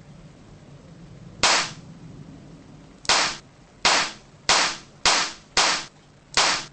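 Seven sharp shots from a Swiss miniature revolver. A single shot comes about a second and a half in, then six follow in quick succession, roughly two-thirds of a second apart, each with a brief ring-out.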